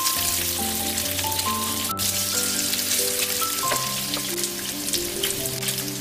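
Pork belly slices sizzling and crackling in their own rendered fat on a square grill pan. A soft background melody of single held notes plays over it.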